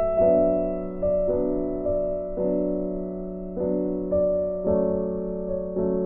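Background music: a slow, gentle piano piece, single notes and chords struck about once a second and left to fade.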